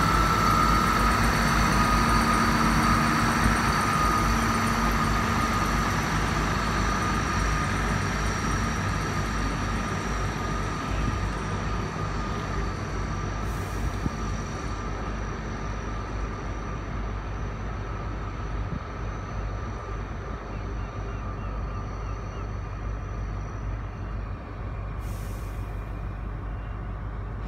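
South Western Railway Class 159 diesel multiple unit pulling away from the platform, its engine and transmission whine fading gradually as it draws off. A steady low diesel rumble continues underneath.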